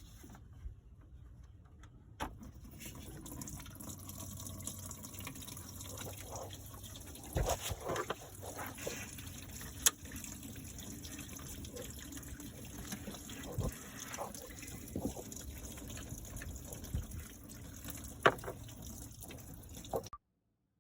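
Coolant water running and splashing out of a disconnected radiator hose on a 2010 BMW 328i, with a few sharp knocks along the way; the sound cuts off abruptly near the end.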